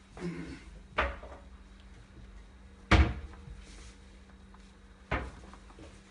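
Three knocks as a cat bats and tugs at a spring-mounted toy on a padded base on a tile floor. The loudest knock comes about three seconds in, with lighter ones about a second in and near the end.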